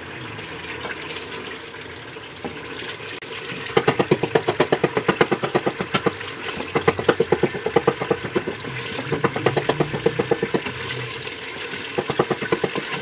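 A spatula stirring a thin curry base in an aluminium pressure cooker, scraping and knocking against the pot in a fast, even rhythm of about six strokes a second. The strokes start about four seconds in and stop shortly before the end, with a brief burst again near the end, over the slosh of the liquid.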